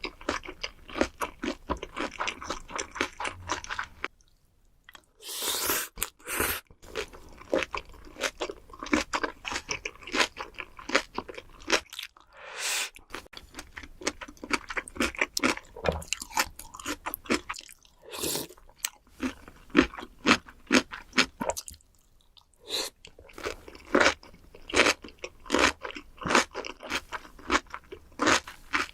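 Close-miked eating of soy-sauce-marinated raw shrimp: rapid crisp crunching and wet chewing, with a few brief pauses.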